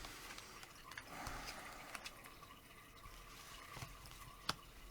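Faint rustling and a few light clicks of tarot cards being handled and laid down.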